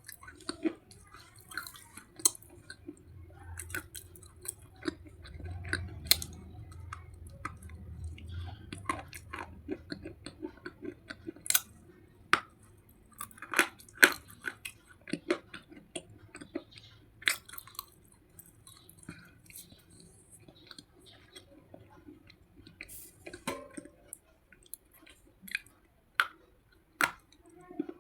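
Slate pencils being bitten and chewed close to the microphone: irregular sharp, crisp crunches and cracks, some louder bites standing out among softer grinding chews.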